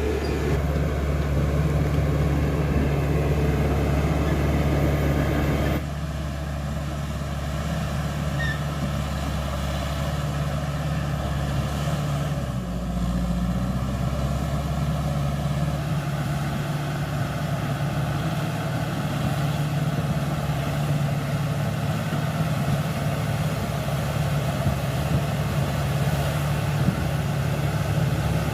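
CAT D5K XL bulldozer's diesel engine running steadily under work, its pitch and load changing a few times, with a drop in level about six seconds in.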